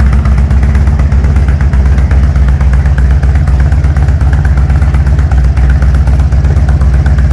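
BMW R100's air-cooled flat-twin (boxer) engine idling steadily with an even, drumming beat. It is the engine's first idle after a full rebuild, running on carburettor and ignition-timing settings only set by eye and not yet dialed in.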